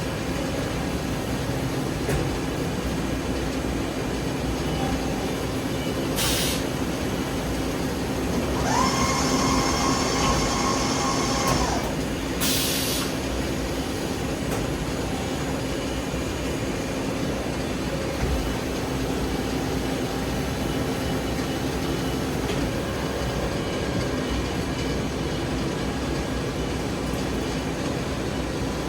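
CNC vertical machining center running with a steady mechanical drone. About 9 s in, a high whine rises quickly, holds steady, then stops about 3 s later. There are two short hisses, one about 6 s in and one just after the whine stops.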